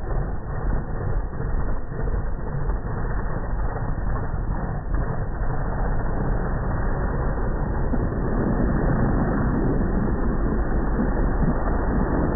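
Drag-racing pickup truck's engine running at the start line, then launching down the strip about eight seconds in, the sound growing louder.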